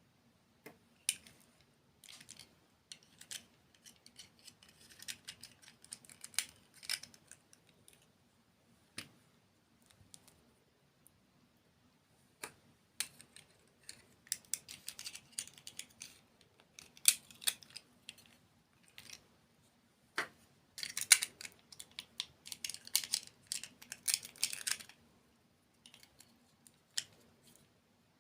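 Close-up crunching and crackling as crisp desserts are bitten and chewed, in irregular bursts with sharp clicks. It is busiest in two stretches, around the middle and near the end.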